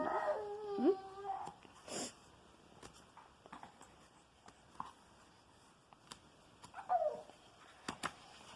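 A child's high, wavering whimpering cry, gliding up and down in pitch for about a second and a half. Then comes a quiet stretch with a few soft clicks and taps, and a short falling whine about seven seconds in.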